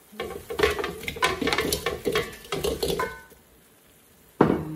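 Chicken wings and a cooking utensil clattering against a pan as the wings are tipped into the garlic-chili sauce, a busy run of knocks for about three seconds, then a pause and one sharp clank near the end.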